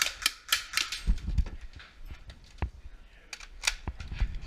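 Airsoft rifle firing about five quick shots, which stop about a second in. Dull knocks and clicks of a hasty magazine change follow, the magazine having run empty.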